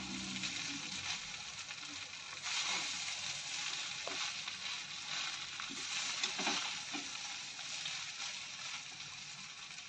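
Soaked poha being stirred and tossed with a metal spatula in a metal kadai over the flame: a steady frying hiss, a little louder after a couple of seconds, with soft scrapes and taps of the spatula against the pan.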